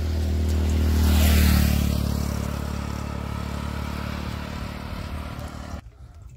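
Motorcycle passing close by with a hiss of tyres and air, loudest about a second in, its engine hum then fading as it rides away. The sound cuts off suddenly near the end.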